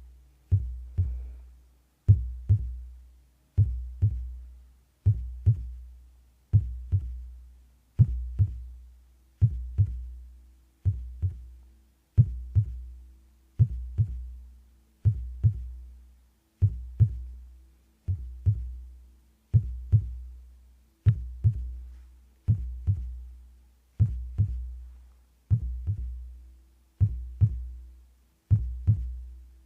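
Heartbeat sounds: deep paired lub-dub thumps repeating at a slow, even pace, about one double beat every one and a half seconds.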